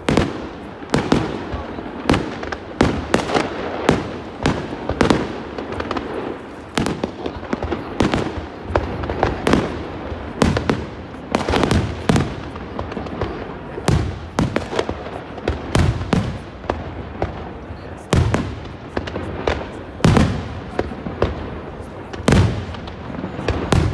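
Aerial fireworks display: shells bursting in a rapid, irregular string of sharp bangs, one to three a second, over a continuous rumble and crackle from the barrage.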